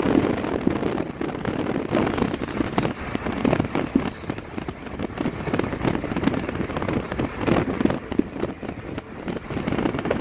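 Wind buffeting the microphone of a phone filming from a moving vehicle, in uneven gusty crackles over steady road noise.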